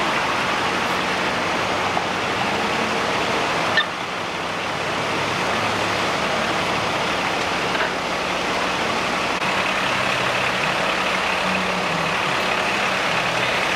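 Fire engine's diesel engine idling steadily with a low hum, with a single short click just before four seconds in.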